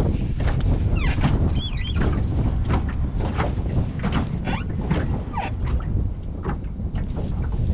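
Wind buffeting the microphone as a steady low rumble, with water slapping and lapping against the hull of a small fishing boat in quick irregular splashes. A brief high warbling sound comes about one and a half seconds in.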